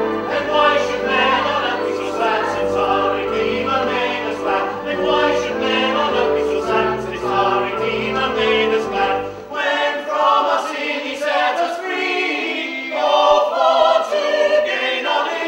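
A choir singing over a low instrumental accompaniment; about ten seconds in, the accompaniment drops out and the voices carry on alone.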